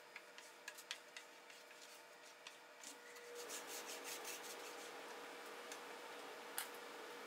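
Faint rubbing with light ticks as a gloved hand works an applicator over a quartersawn white oak sign, spreading a hardwax oil finish. From about three seconds in a steady hiss with a thin hum takes over, and there is one sharp click near the end.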